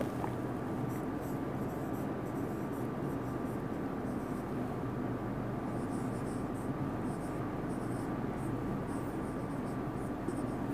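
Marker pen writing on a whiteboard: faint, scattered scratchy strokes over a steady background hiss.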